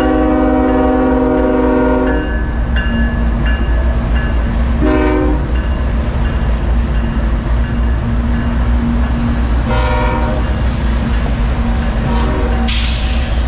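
Diesel locomotive horn on a CSX unit coal train: a long chord that cuts off about two seconds in, then two short blasts, over the train's steady low rumble. A burst of hiss comes near the end.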